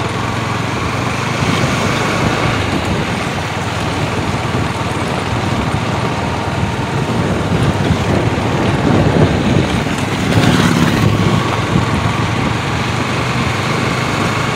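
Motorbike riding along a rough concrete and gravel road: steady engine and road noise, with other motorbikes coming past the other way and a louder stretch about ten seconds in.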